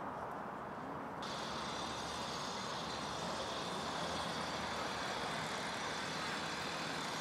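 Outdoor city ambience: a steady rumble of distant traffic. About a second in, the sound changes abruptly and a steady high hiss with thin, level high tones joins it.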